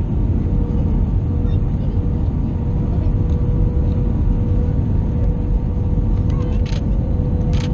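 Airbus A320 cabin noise: a steady low rumble of the engines and airflow, with a steady hum, and a couple of short clicks or rattles near the end.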